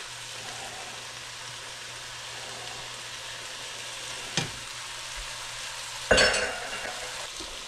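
Sausage, mushroom, onion and freshly added garlic filling sizzling steadily in a nonstick frying pan while a silicone spatula stirs it, over a low steady hum. A sharp knock comes about four seconds in, and a louder clatter of knocks about six seconds in.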